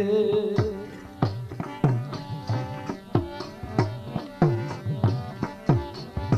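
Instrumental break in a Gujarati dakla devotional song: a drum plays a running pattern of sharp strokes whose deep tones slide down in pitch, over a quieter melodic accompaniment. The singing fades out just as it begins.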